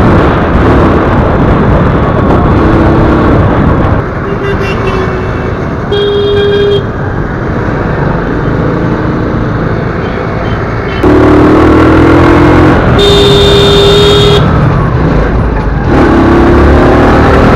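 Riding a motorcycle through busy city traffic: a constant rush of wind and road noise with engines, and vehicle horns honking several times in short held blasts.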